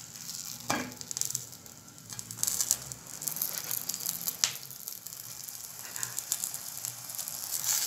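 Stuffed msemen frying in oil in a hot pan, sizzling and crackling after being turned to its second side, with a couple of sharp clicks of the spatula against the pan, about a second in and near the middle.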